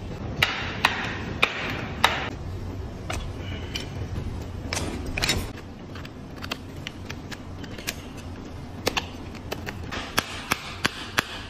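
Farrier's hand tools working a horse's hoof on a hoof stand. For the first half there are scraping strokes against the hoof, roughly two a second. From about halfway come sharp clicks as a hoof knife pares the sole.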